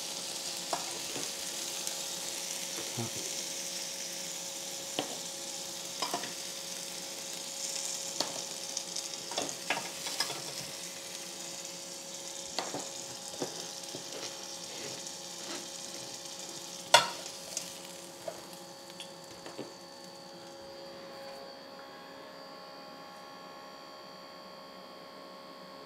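Hot chicken sizzling on the grill plate of a Ninja Foodi Max Health Grill, broken by scattered clicks and clatters of metal tongs lifting the pieces off. A sharp clack comes about two-thirds through, after which the sizzle dies away and a steady hum remains.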